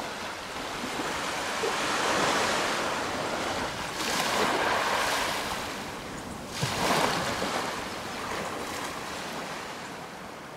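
Small waves breaking and washing up a sandy beach, surging about three times, loudest about seven seconds in.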